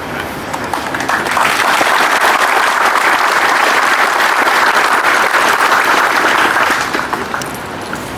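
Crowd applauding: clapping swells about a second in, holds steady, and dies away near the end.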